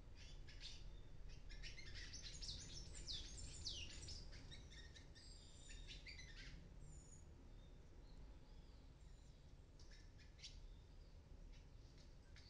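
Palm tanagers chirping faintly: a rapid run of short, high chirps and a few down-sweeping calls, busiest about two to four seconds in, with a couple of thin whistles after, then sparser chirps near the end.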